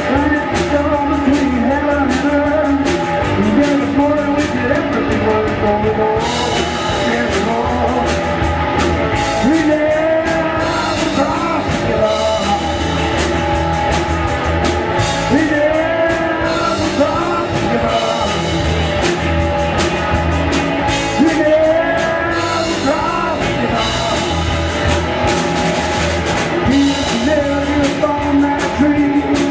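Rock music with a singing voice over guitar and a steady drum beat.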